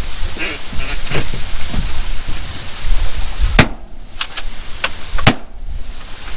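Two shotgun shots about a second and a half apart, each a sharp, very loud crack, fired at incoming ducks.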